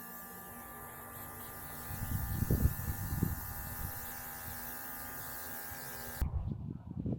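Steady electric hum with hiss, with a few low rumbles about two to three seconds in; it cuts off abruptly about six seconds in, leaving a low outdoor rumble.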